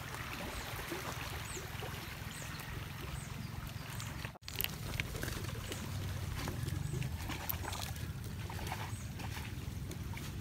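Steady outdoor background noise with a low rumble, a faint trickle of water and scattered small clicks, broken by a brief dropout about four seconds in where the video cuts.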